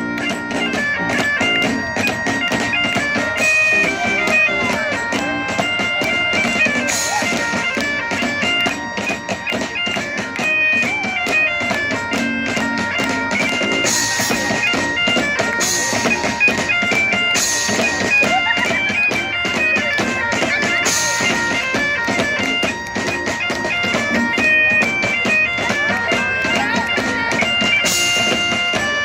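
Live folk band playing an instrumental bagpipe tune: a stepping melody over steady held drones, driven by rapid, steady drumming with a cymbal crash every few seconds.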